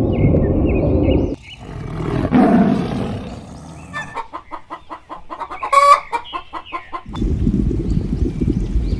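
Chicken clucking in a quick run of about six clucks a second, ending in one short loud call, between stretches of low rumbling noise at the start and the end.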